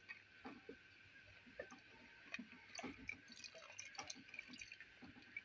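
Faint liquid sounds from thick nihari stew in a clay pot: a wooden spoon stirring it while thin flour-and-water slurry is poured in, with small irregular clicks and drips.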